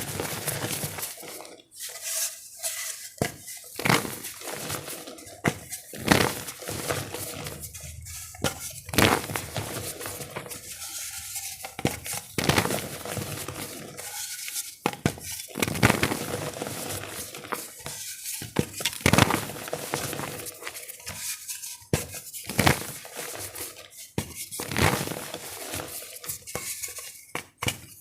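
Gym chalk being crushed and crumbled in water: irregular sharp cracks and crunches every second or so, some with a hard clink, over a steady crackle.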